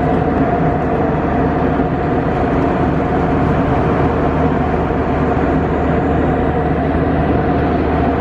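Steady drone of an airliner in flight heard inside the cabin: even engine and air noise with a few constant hums, unchanging throughout.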